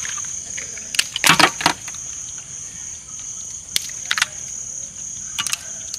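Steady high-pitched chirring of crickets, broken by a few sharp cracks and clicks as roasted crab shells are snapped open by hand, in a cluster about a second in and again near the end.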